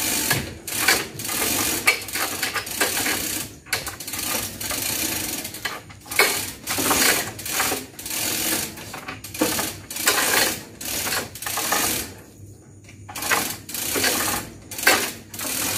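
Manual chain hoist clattering as its hand chain is pulled hand over hand, raising a hung stack of horn loudspeaker cabinets: rhythmic rattling strokes about one to two a second, pausing briefly about twelve seconds in and then starting again.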